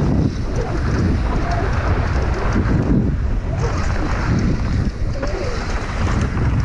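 Wind buffeting the microphone of a downhill mountain bike rider at speed, over the tyres rolling on a dry dirt trail and the bike rattling, with small ticks from stones and the chain.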